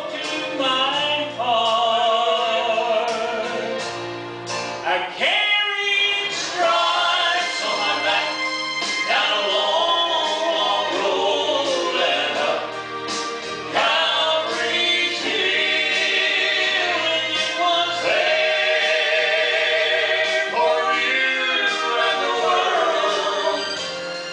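Southern gospel vocal group singing in harmony over instrumental backing with a steady bass line.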